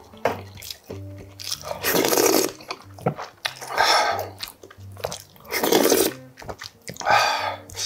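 Close-miked eating sounds: four loud, airy bursts of blowing on and slurping hot kimchi stew broth from a wooden spoon, spaced a second or two apart, over faint background music.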